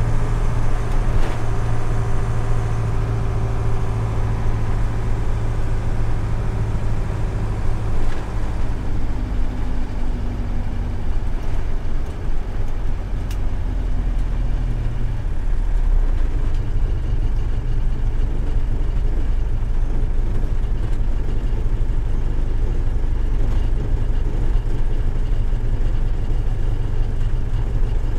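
Mercedes-Benz Düdo 608D truck's four-cylinder diesel engine running as it drives and slows to a stop, a steady low drone whose note drops about halfway through.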